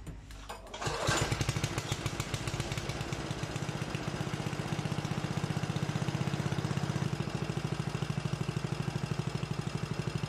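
Honda HRJ216 lawn mower's single-cylinder OHV engine catching about a second in, then running steadily with a fast, even beat.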